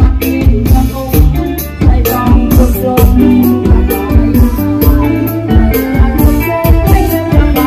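Loud live band music with a steady drum-kit beat, a bass line and a melody on top.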